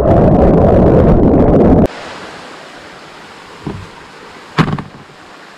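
Loud outdoor rushing noise that cuts off sharply after about two seconds, then a quieter steady outdoor hiss with two short knocks.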